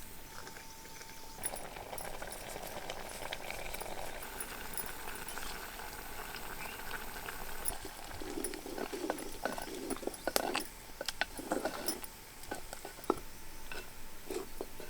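A pot of rice porridge bubbling, then a run of sharp clinks and knocks from about halfway through.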